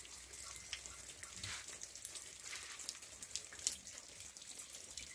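Light rain: a soft steady hiss with many small irregular ticks of drops falling and dripping from the porch roof eave.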